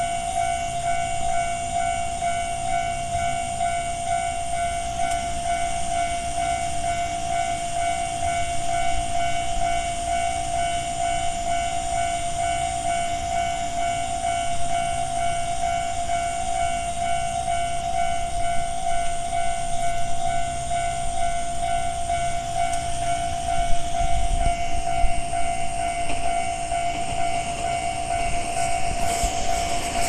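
Japanese level-crossing warning bell ringing continuously, a fast repeating electronic clang, with a low rumble beneath it and a hiss rising near the end.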